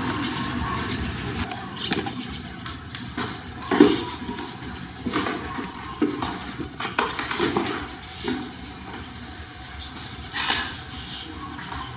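Kittens scuffling and wrestling, with irregular short knocks and scrabbles of paws and bodies against a plastic toy and tiled floor, a louder bump about four seconds in and another near the end.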